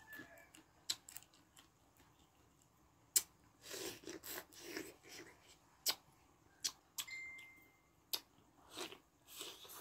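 Close-up eating sounds: crunching and chewing of fried alubaybay, with a handful of sharp clicks between the bites.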